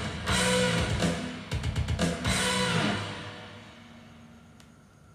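A rock record with electric guitar and drums playing on a turntable, reaching its ending: the band stops about three seconds in and the last chord fades out, leaving a faint hiss. A sharp click comes right at the end.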